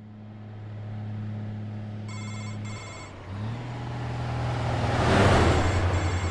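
A steady low drone, broken about two seconds in by a brief electronic ringing like a phone, twice in quick succession. Then a semi-truck's diesel engine runs with a low pulsing rumble, and a rushing whoosh peaks about five seconds in as the fuel tanker rig passes.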